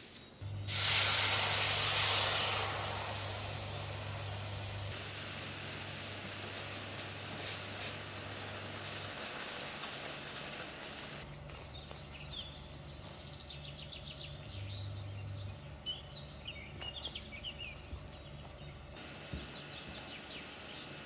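Food added to hot melted butter in a frying pan: a loud sizzle that starts suddenly about half a second in and dies down over a few seconds into a quieter steady sizzle. Light clicks and scrapes of stirring come in the second half, over a low steady hum.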